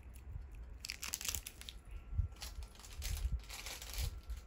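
Rustling and crinkling of packaging being handled, in several short bursts starting about a second in.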